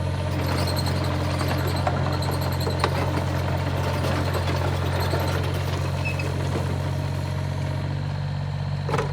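Excavator engine running steadily at a constant speed, a continuous low hum with light rattling and a few clicks over it.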